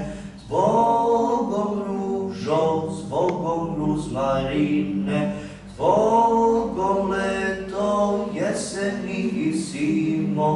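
A teenage boy singing solo without accompaniment, a slow song in Serbian, in long held phrases with short pauses for breath between them.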